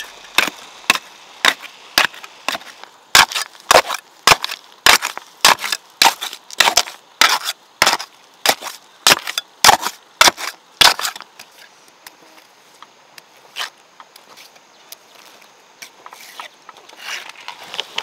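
A steel tamping bar with a flat blade driven down again and again into rocks and wet concrete packed around a wooden gate post, tamping them tight. Sharp knocks come about two a second and stop about eleven seconds in, with only a few scattered knocks after.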